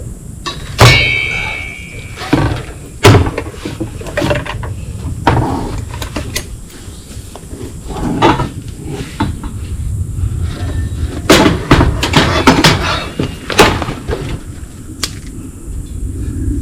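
Metal clanks and knocks from handling a hunting tree stand and its seat while fitting it in place. About a second in, one clank rings briefly with a metallic tone, and a quick run of knocks follows later.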